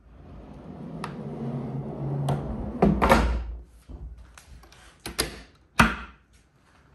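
Heavy plywood drawer running on heavy-duty drawer slides, rumbling as it rolls shut and closing with a knock about three seconds in. A few sharp clicks follow, the loudest near the end.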